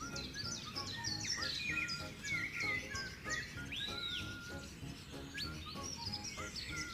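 Many small birds chirping and calling over one another in a dense chorus of quick, sliding notes, with one arched whistle about four seconds in. Music with a steady beat plays underneath.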